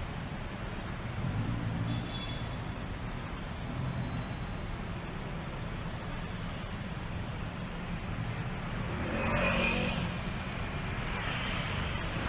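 City street traffic: cars, taxis and motorbikes idling and pulling away in a steady low hum of engines. A louder swell, a vehicle passing close, comes about three-quarters of the way through.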